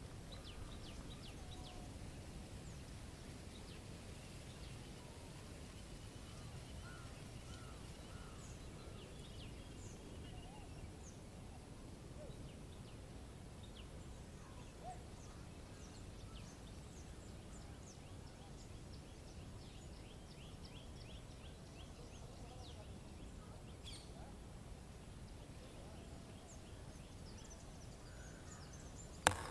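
Faint outdoor nature ambience: scattered distant bird chirps and short trills over a steady low rumble. A single sharp click near the end.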